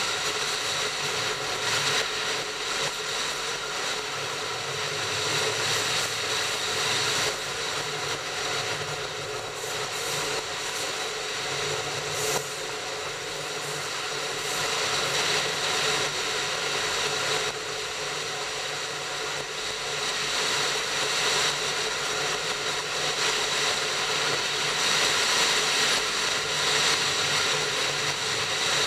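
Steady running noise of a train in motion: a constant rush of wheels on rail and running gear with a few fixed humming tones, growing a little louder near the end.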